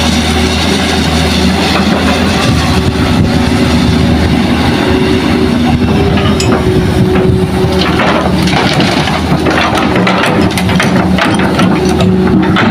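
Hitachi excavator's diesel engine running steadily under load, with rock and soil clattering and crunching from about halfway through.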